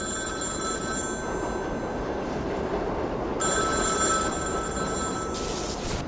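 Telephone ringing in bursts, one ring ending about a second in and the next starting a little after three seconds, over a steady low train rumble. A short hiss comes just after the second ring.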